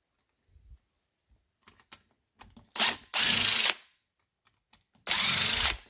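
Power screwdriver backing out the two Phillips screws that hold the top of a Honda N600 carburettor: two short bursts of running, about two seconds apart, after a few light clicks of handling.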